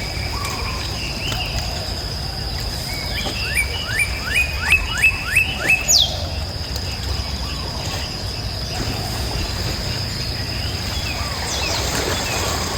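A bird calling in a quick series of about eight short rising notes, about three a second, a few seconds in, followed by a single falling note. A steady high-pitched tone and low background noise run underneath.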